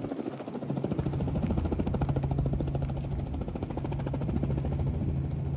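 Helicopter running nearby: a steady low engine hum with a fast, even rotor chop, growing louder over the first second or two.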